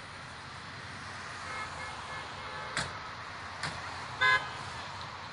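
A single short vehicle horn toot about four seconds in, over a steady background of roadside traffic noise, with a couple of sharp clicks shortly before it.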